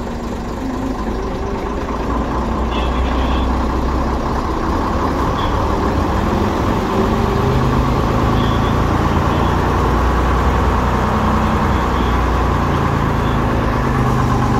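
1948 AEC Regal Mark III bus's engine idling steadily, its note shifting slightly about halfway through.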